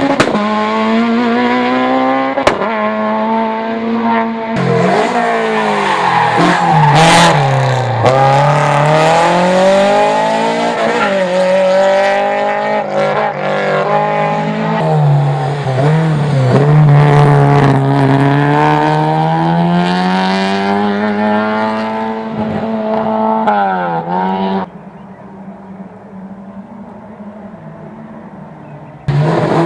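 Hillclimb race car engines revving hard, the engine note climbing and dropping again and again through the gear changes. About 25 s in the engine sound stops abruptly, leaving quiet outdoor background, and another car's engine comes in loud near the end.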